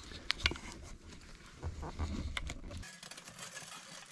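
Dry twigs crackling and snapping as they are handled and fed into a small fire in a folding aluminium windshield, with sharp clicks about half a second in and again about two and a half seconds in. A low rumble underneath stops suddenly just before three seconds.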